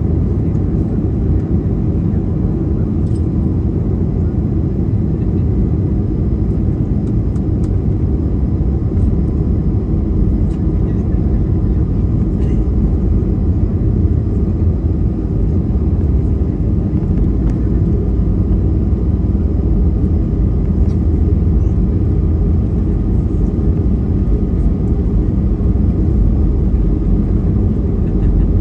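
Steady, loud low rumble of an Airbus A320 heard inside the cabin as the airliner rolls along the ground toward takeoff, with a faint steady whine above it.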